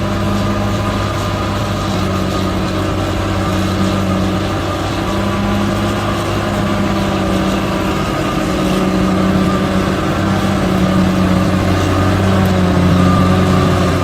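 Heavy earthmoving machine's diesel engine running steadily, a little louder in the second half.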